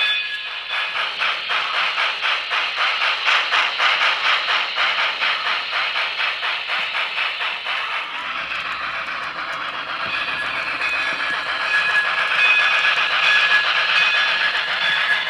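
Paragon4 sound decoder of a Broadway Limited N scale USRA 2-8-2 Mikado playing steam locomotive sounds through the model's small speaker. It starts with rapid, even chuffing, about four beats a second. About halfway through this gives way to a steadier hiss with a held chord of several tones over it, strongest near the end.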